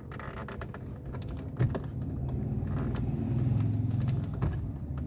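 Irregular plastic clicks and scrapes as a thin screwdriver pries a dashboard air vent out of its clips, over a low steady hum.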